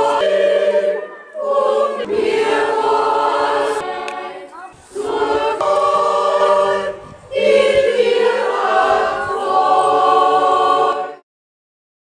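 Mixed choir of men's and women's voices singing without accompaniment, in phrases broken by short breaths. The song ends abruptly about eleven seconds in.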